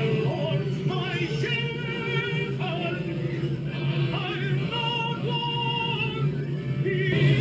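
Music with a high singing voice: a string of held, wavering notes over a steady low drone.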